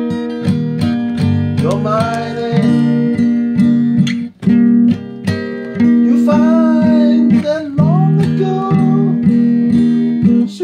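Music: an acoustic guitar strummed in steady chords, with a voice singing a melody over it at times.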